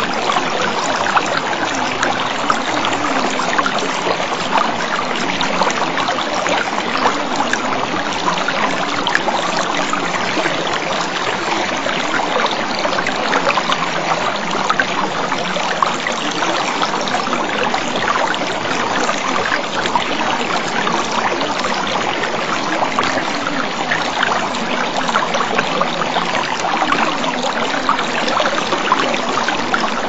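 Steady running water, an even, unbroken flowing sound.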